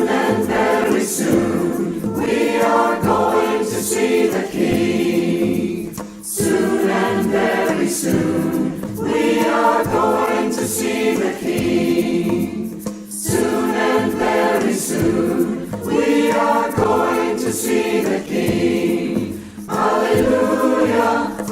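Choir singing a gospel song in long phrases of about six to seven seconds each, with brief breaks between them.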